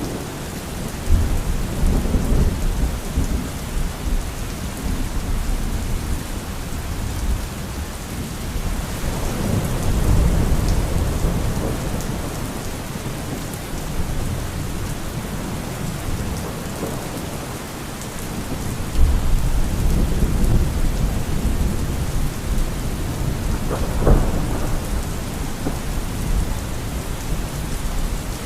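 Thunderstorm: steady heavy rain hissing, with rolling thunder rumbling in long low swells three times, and a sharper crack about 24 seconds in.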